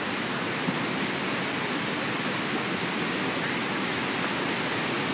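Steady rushing of water from Niagara Falls and the churning Niagara River below it, an even, unbroken noise.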